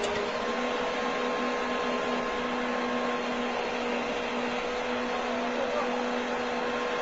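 A machine running steadily: an even mechanical rush with a constant hum held on several steady tones.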